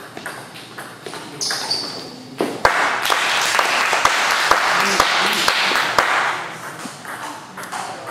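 Table tennis balls clicking off bats and tables, a run of about two hits a second through the middle of the stretch. The hits sound over a loud steady hiss and voices in a large hall.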